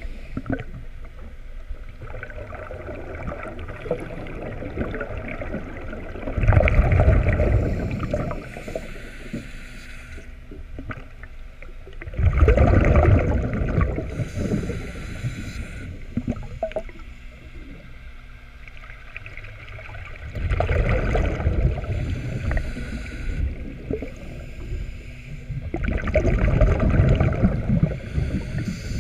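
Scuba diver breathing underwater through a regulator: four loud bubbling rushes of exhaled air about every six to seven seconds, with quieter stretches between.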